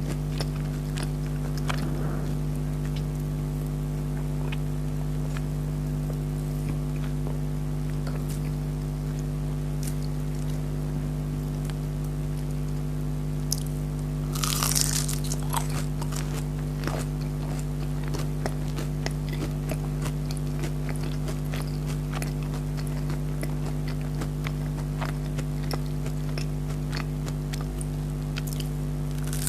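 Close-up chewing and biting of crispy chicken nuggets: scattered crunches, with a louder burst of crunching about halfway through. A steady low hum runs underneath.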